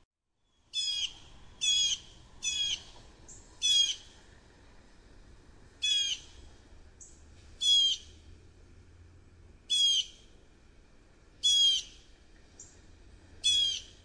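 American robin calling: nine short, rapid, chattering phrases, each about a third of a second long and one to two seconds apart, with a few faint thin high notes between them. The calls begin after a moment of silence.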